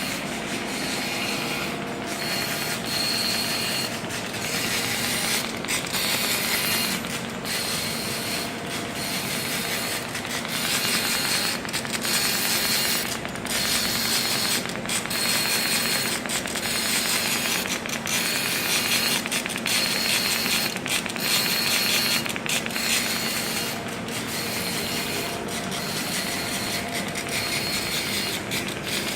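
Polysoude MU IV 115 orbital TIG weld head welding steel pipe: a steady arc hiss and buzz with a high whine that comes and goes, broken by short dips about once a second.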